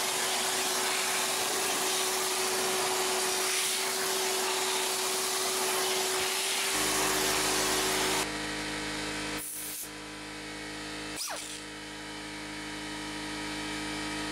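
Air-powered angle die grinder with a coarse rust-removal disc running with a steady hiss and whine, scrubbing surface rust off a rear wheel hub; it stops about eight seconds in. A low steady hum comes in just before it stops and carries on, with a couple of short clicks.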